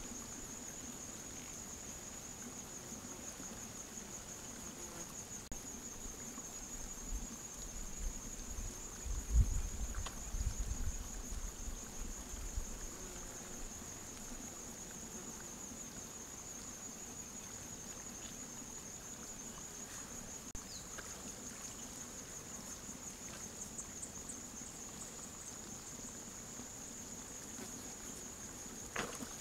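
Sambar stag moving through a mud wallow, with low thuds and faint sloshing about a third of the way in and a short splash near the end as it settles into the mud. A steady high-pitched whine runs underneath.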